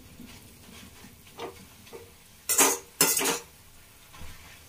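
Metal spatula scraping and knocking against a metal kadhai while stirring leafy greens, with two sharp clatters about two and a half and three seconds in.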